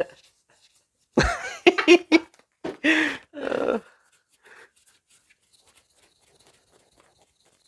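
People laughing in a few short, breathy bursts between about one and four seconds in. Then only faint small ticks and scrapes.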